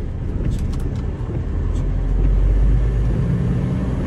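Semi truck engine running with a steady deep rumble that swells about two seconds in, then settles to a slightly higher note a little after three seconds.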